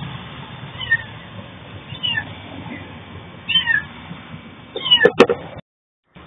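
A cat meowing repeatedly in short, high calls about once a second, each call falling in pitch. About five seconds in there is a sharp click, and then the sound cuts out for about half a second.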